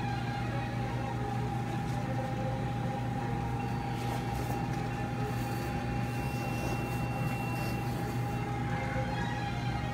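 Steady machine hum of operating-room equipment with a constant mid-pitched tone, and a higher electronic tone sounding for about three seconds in the middle.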